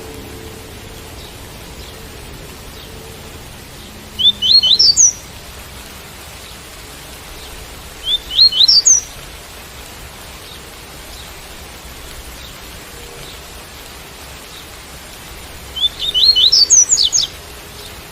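Double-collared seedeater (coleiro) singing the tui-tui song: three short phrases of quick rising notes, the last one longest, over a steady hiss of rain.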